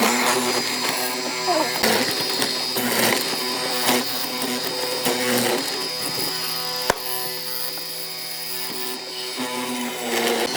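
Background music with steady held notes that change every second or two, and a single sharp click about seven seconds in.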